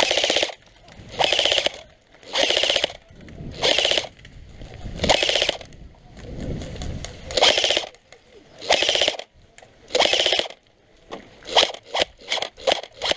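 Airsoft electric rifle firing repeated short full-auto bursts, each about half a second of rapid clatter, at a steady rhythm of roughly one burst every second and a half. From about eleven seconds in come many shorter, quicker bursts.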